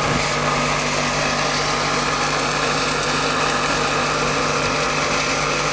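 Machinery of a bamboo-sawdust pellet line running steadily: a constant hum of electric motors and a fan, with a steady low tone under an even whirring noise.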